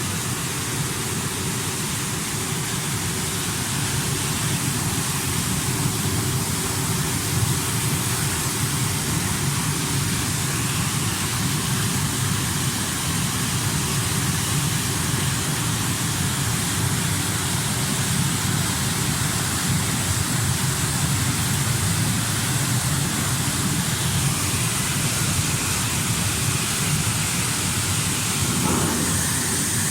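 Air-bubble fruit and vegetable washing machine running: a steady rush of churning, bubbling water over a low machine hum.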